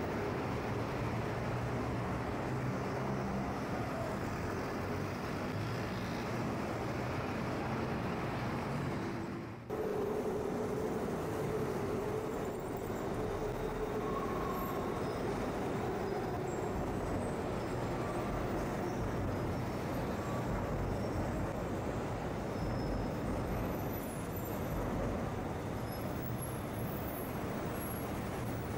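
Steady city street traffic noise from a busy multi-lane road, cars and buses running, briefly dipping about a third of the way in, with a steady hum for several seconds after the dip.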